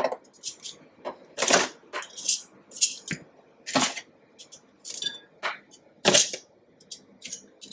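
Metal tongs clicking and scraping on a disposable aluminium foil pan as baked chicken wings are picked up and dropped into a glass bowl of butter sauce: an irregular string of sharp clicks and rattles, the loudest about one and a half, four and six seconds in.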